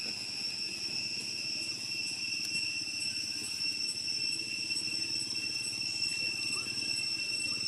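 Steady, high-pitched drone of insects, held unbroken on one pitch, over a continuous low rumble.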